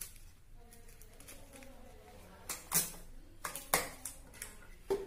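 Cellotape being pulled and torn from a desk tape dispenser: a few short scratchy pulls in the second half, among light handling of paper strips and plastic straws.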